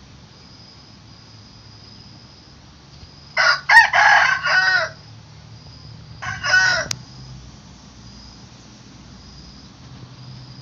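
Rooster crowing: one long crow about three and a half seconds in, then a second, shorter crow about three seconds later.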